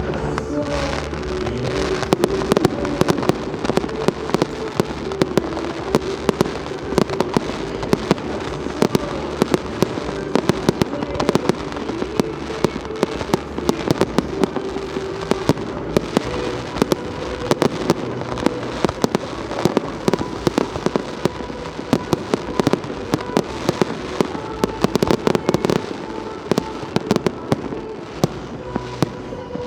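Fireworks display: a steady barrage of sharp bangs and crackling bursts, dozens of reports in quick succession throughout.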